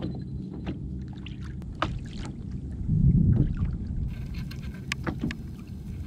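Water noise on a fishing kayak at sea: a steady low rumble with scattered light clicks and knocks, swelling louder about three seconds in.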